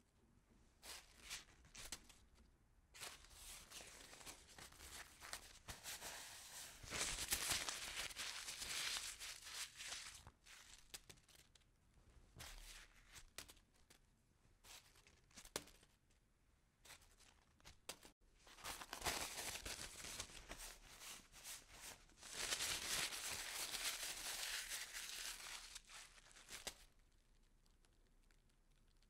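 Pencil scratching on paper in short irregular strokes, with two longer, louder stretches of steady scratching about a quarter of the way in and again past three quarters. It dies down near the end.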